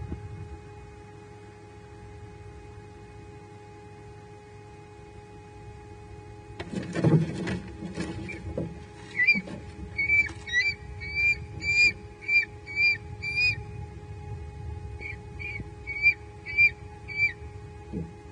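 A sudden scuffle of wings and thumps about seven seconds in, as a great horned owl strikes a perched bald eagle eaglet. Then the eaglets call in alarm: a run of short, high, whistled squeals about two a second, a pause, then a few more.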